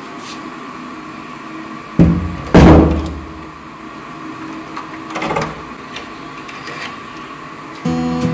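A front door swings shut with two heavy thuds about two seconds in, then its lock knob is turned by hand with a few metal clicks.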